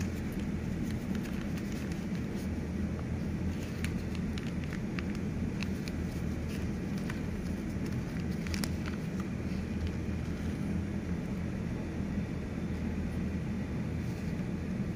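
A steady low mechanical hum, with a few faint crinkles and clicks from a small plastic seed packet being handled.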